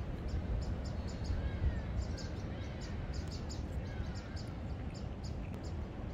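Wind buffeting the microphone, a low rumble, with short high clicks repeating a few times a second and a few faint bird whistles.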